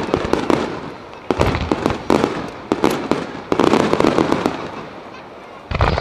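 Starmine fireworks barrage: volleys of sharp bangs and crackling in several clusters, each about a second apart.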